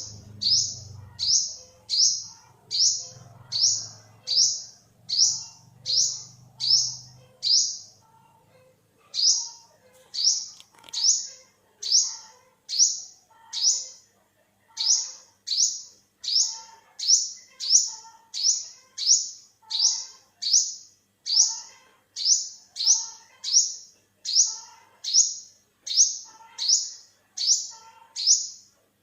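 Olive-backed sunbird calling: a sharp, high note that drops in pitch, repeated steadily about twice a second, with brief pauses about eight seconds in and again around fourteen seconds.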